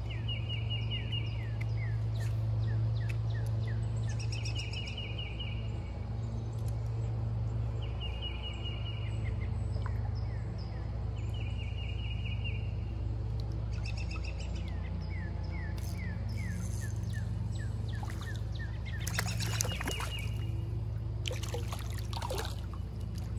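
A songbird sings the same short high trill again and again, about every four seconds, each trill followed by a few quick falling notes, over a steady low hum. In the last several seconds there are a few brief clicking and rustling noises as a spinning rod and reel are handled.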